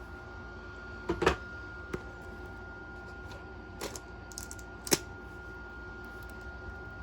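Hands handling the contents of a magazine package: a few sharp taps and clicks as items are picked up and set down, the loudest a quick double tap about a second in, over a steady faint hum.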